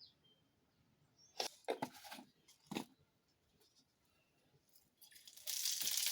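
A few sharp knocks of a utensil against a kadai, then about five seconds in a loud sizzle as food hits the hot oil, which stops abruptly.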